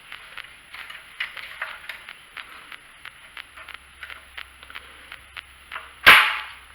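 Light, irregular clicks and taps of needle-nose pliers and small metal parts being handled while a fuel-line hose clamp is fitted. One sharp, louder clack comes about six seconds in.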